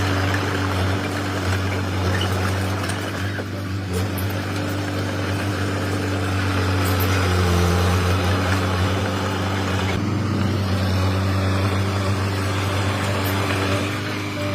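Komatsu D21P mini crawler bulldozer's diesel engine running steadily with a constant low drone. Its note shifts slightly a couple of times.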